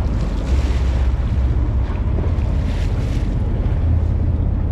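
Wind buffeting the microphone in a heavy, steady rumble, over open sea water washing and splashing at the boat's side.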